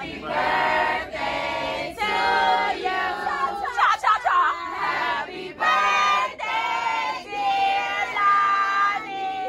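A group of people singing together, holding each note for about half a second to a second with short breaks between phrases.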